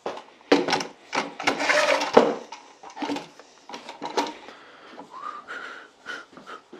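Metal bar clamps clattering as they are handled and repositioned against a freshly glued drawer box: a dense run of knocks and rattles in the first two seconds, then scattered lighter clicks.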